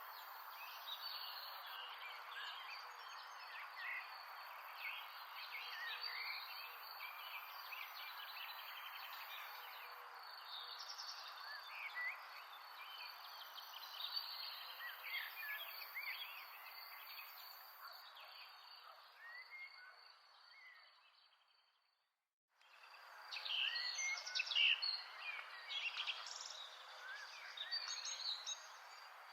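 Many small birds chirping and calling over a steady background hiss. About two-thirds of the way through it all fades out to a brief moment of silence, then starts again.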